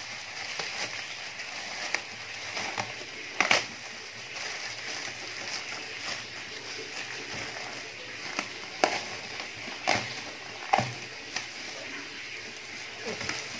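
Clear plastic wrap crinkling and rustling as it is pulled off a subwoofer driver, with a few sharp crackles along the way.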